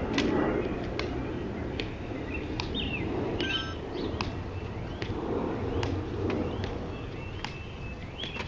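Slow, evenly spaced clicks of a tomb guard's metal-tapped shoes striking the stone plaza as he marches, with birds chirping over an outdoor hush.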